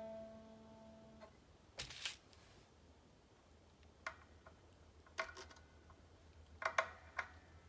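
A single string on a Squier Affinity Stratocaster is plucked, and its note rings for about a second. Scattered light clicks and taps of hands and tools working on the guitar follow.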